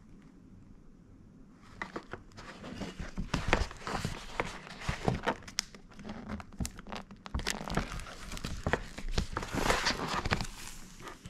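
Crinkling and rustling of something being handled, with many quick crackles. It starts about two seconds in and stops shortly before the end.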